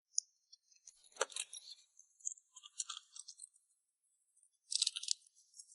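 Boiled freshwater crab being crunched and chewed: scattered crisp crackles and clicks of shell breaking between the teeth, with a denser burst of crunching near the end.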